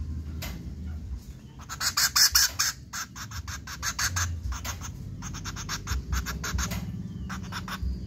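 A hand-raised woodpecker on a person's shoulder makes quick runs of sharp, clicking notes. The loudest run comes about two seconds in, and shorter runs follow until near the end.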